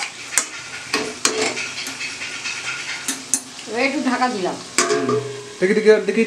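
Curry sizzling in an iron kadai while a metal spoon stirs and scrapes it, with sharp clinks of metal on the pan. Toward the end a steel lid is set down on the pan.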